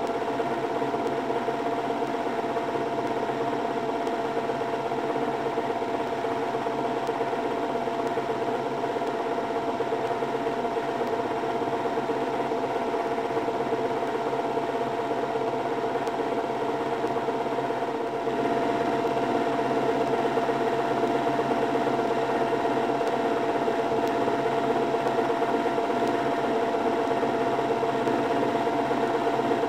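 Märklin H0 model trains running on the layout: a steady whirring motor hum with a rattle of wheels on the track, getting a little louder about eighteen seconds in.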